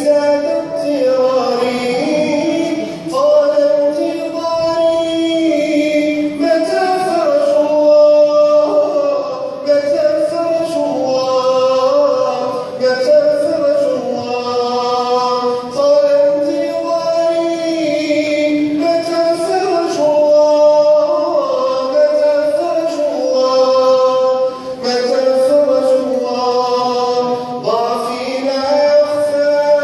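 Arabic Islamic nasheed: male voices sing a flowing, melismatic melody with layered voices in harmony.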